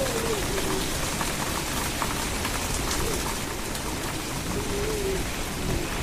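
Heavy rain falling steadily, with a faint wind howl that rises and falls a little after four and a half seconds in.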